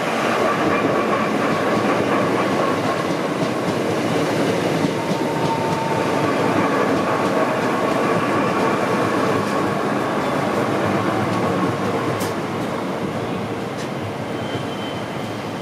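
Two coupled Class 465 Networker electric multiple units running into the platform and passing close by. A steady rumble of wheels and running gear carries a faint whine, with a couple of sharp clicks near the end. The sound eases off over the last few seconds as the train slows to stop.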